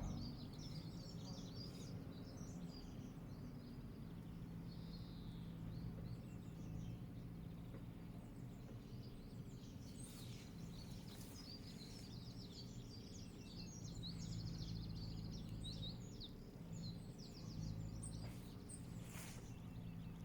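Many small birds chirping and twittering in quick, overlapping notes, over a steady low hum.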